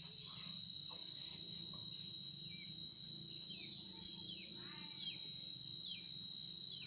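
Steady high-pitched insect trill, with short falling bird chirps dotted through the second half and a low steady hum underneath.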